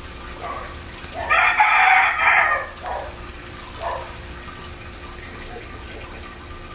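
A rooster crows once, starting about a second in and lasting under two seconds, over the steady sizzle of pumpkin fritters frying in oil in a skillet.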